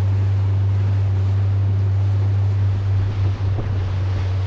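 Outboard motor on a small inflatable dinghy running steadily, throttled back to go slow, with a loud steady low hum. Water splashes along the hull and wind rushes across the microphone.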